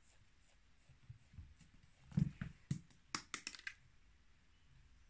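Faint, light taps and knocks of a cat playing with a small toy ball on carpeted wooden stairs: paws batting the ball and the ball knocking on the steps. The strongest knock comes about two seconds in, then a quick flurry of clicks just after three seconds.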